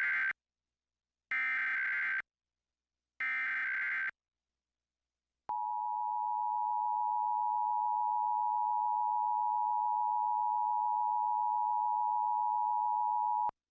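Emergency Alert System SAME header: the last moment of one digital data burst, then two more, each about a second long with gaps between, encoding the alert's details. About five and a half seconds in comes the EAS attention signal, a steady two-tone beep (853 and 960 Hz) held for about eight seconds before it cuts off sharply, marking a Required Monthly Test.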